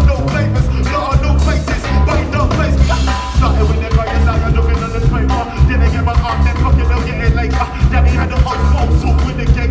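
Live jazz-band music played loud: a tuba bass line and drums, with saxophone, and a rapper's voice on the microphone over the top.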